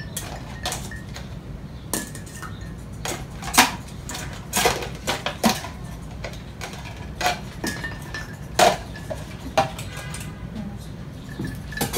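A spoon stirring and knocking against the sides of a plastic cup while sweetening lemon water, a dozen or so irregular clinks and taps, the loudest about three and a half seconds in and again near nine seconds. A steady low hum runs underneath.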